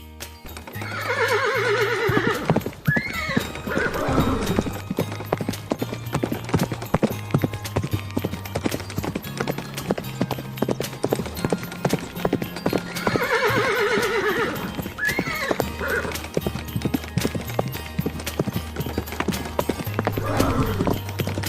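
A horse whinnies, a long wavering call about a second in and again about thirteen seconds in, with a shorter one near the end, over a steady clip-clop of hooves. Background music with a low bass line plays throughout.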